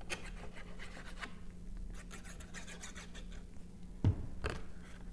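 Cardstock being handled and pressed by hand as glued tabs are folded in to form a box: light scratching and rubbing of paper, with a soft knock about four seconds in.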